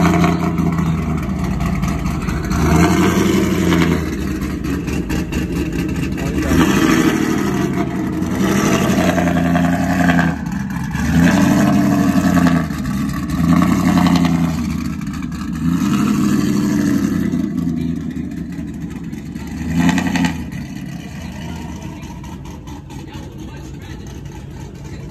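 Chevrolet Camaro engine revved hard through its quad exhaust about half a dozen times, each rev climbing and falling back, then one short sharp blip before the engine settles back toward idle near the end.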